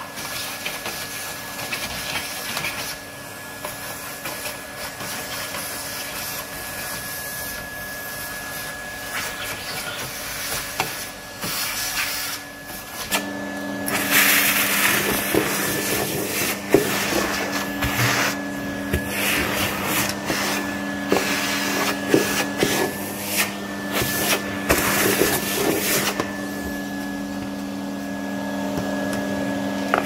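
Numatic Hetty cylinder vacuum cleaner running, with a steady high motor whine. About halfway through, the sound grows louder and a low hum joins in, and grit and small debris click and rattle as they are sucked up the hose.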